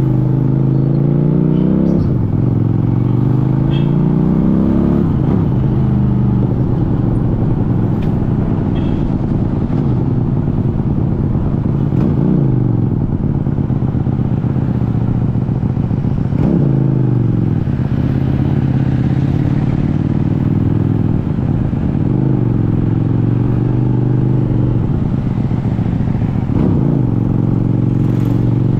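QJMotor SRV400 V-twin motorcycle engine under way in traffic, repeatedly climbing in pitch as it accelerates and then dropping back, every few seconds.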